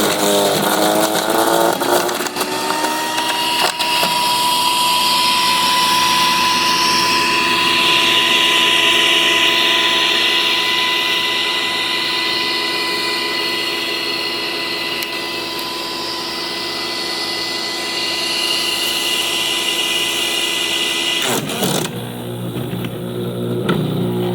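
Sun Joe CJ602E 15-amp electric chipper/shredder running, its motor whining steadily as it chews through a branch. About 21 seconds in the pitch drops and the machine bogs down: the 1 3/4-inch branch, thicker than its 1.57-inch rating, is jamming it.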